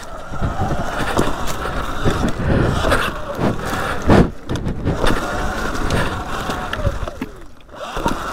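Sur Ron Light Bee X electric dirt bike ridden fast over a dirt trail: the motor and drive whine rises and falls with the throttle over knobby-tyre and rough-ground noise, with scattered knocks from bumps. The battery is running low and the bike has lost torque.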